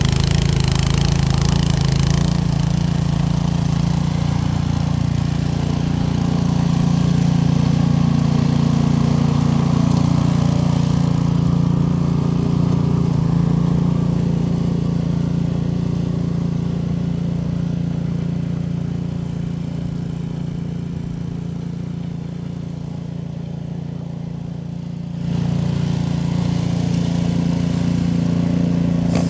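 Cub Cadet two-stage snow blower's engine running steadily. It grows quieter for a while, then abruptly gets louder again near the end.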